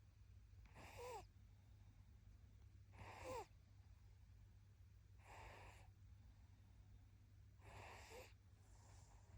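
A sleeping baby snoring softly, one faint breath about every two seconds, several with a short squeaky whistle that falls in pitch.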